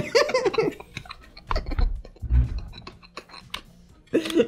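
A short laugh, then scattered clicks and two dull thumps about two seconds in as a pump-action shotgun is handled and laid down on a shop counter.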